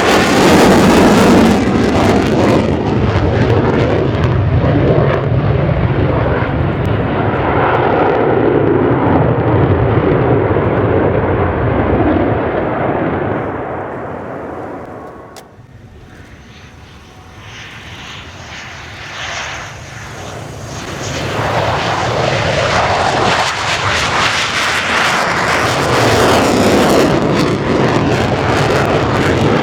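Twin jet engines of an F-15DJ Eagle fighter, loud as it flies by, then fading to a distant rumble as it moves away. About twenty seconds in it swells back to loud as the jet comes round on another pass.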